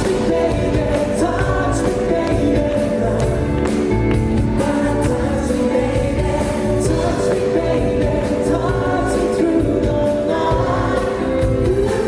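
Live band performing a pop-rock song with sung vocals over a steady beat.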